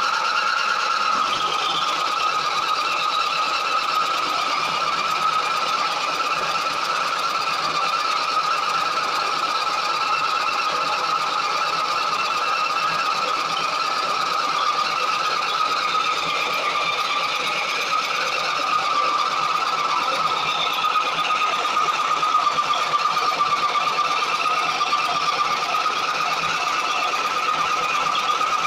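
Belt-driven maize sheller running steadily while shelling corn, a constant high whine over a dense hiss of machinery and kernels.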